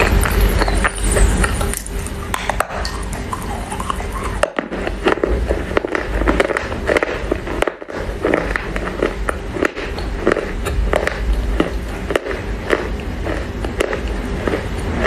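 Close-up biting and chewing of a chunk of wet Chinese loess clay: a dense run of short, sharp crunches and crackles, with a couple of brief pauses.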